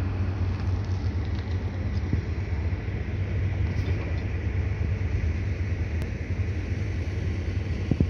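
Steady low rumble of heavy construction machinery engines running, over a continuous noisy hiss.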